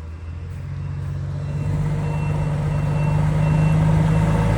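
Volvo FH truck's diesel engine running at a steady pitch and growing steadily louder, with a reversing alarm beeping about twice a second from about a second and a half in.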